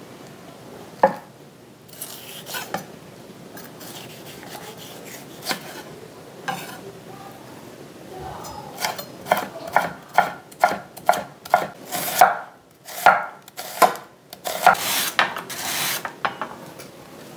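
Vegetables being sliced on a wooden board: a few scattered knife taps while a bell pepper is cut into strips, then from about halfway a quick run of slicing strokes, about two a second, as a carrot is pushed back and forth over a wooden mandoline slicer.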